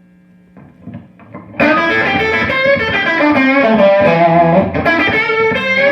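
Electric guitar playing a quick run of lead notes over a steady amplifier hum. A few quiet picked notes come in under a second in, the full lick starts at about a second and a half, and it stops at the end.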